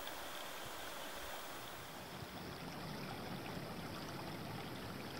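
Steady sound of water trickling and flowing through a beaver dam, becoming fuller and deeper about two seconds in.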